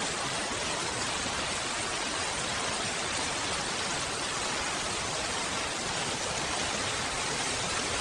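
Heavy rain falling as a steady, even hiss, with no single drops, thunder or other events standing out.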